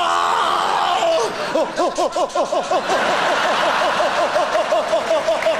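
Live theatre audience laughing. From about a second and a half in, a rapid run of short pitched rise-and-fall sounds comes through, about five a second.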